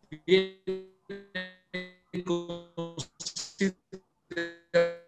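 A man's voice over a video call breaking up into a stuttering string of short, clipped, flat-pitched buzzy tones, a few a second, so that no words come through. It is the speech garbled by a poor internet connection, which listeners say can barely be heard.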